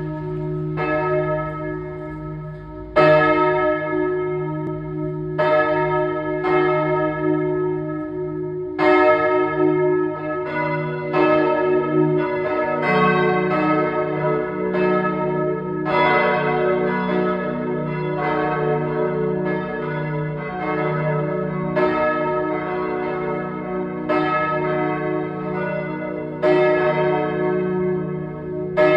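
Church bells ringing: several bells struck in overlapping strokes, each ringing on with a long hum. The strokes come a few seconds apart at first, then quicken to about one a second after some ten seconds as more bells join in.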